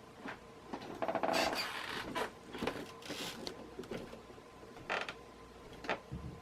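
TAT industrial ceiling fan running with a steady motor hum, overlaid by irregular creaks and clicks; the loudest creaking comes about one to two seconds in.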